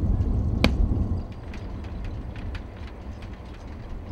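A single sharp gunshot crack about half a second in, over low wind rumble on the microphone. After about a second the rumble drops away and faint, irregular light clicks follow.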